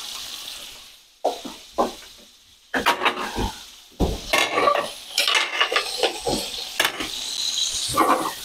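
Prawns sizzling as they sear in a frying pan with green sauce and garlic. A spatula scrapes and knocks against the pan now and then, thickest in the second half.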